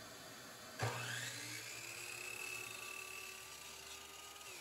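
Electric compound miter saw switched on about a second in, its motor whining up to speed and running steadily, then released near the end so the whine starts to fall as the blade winds down.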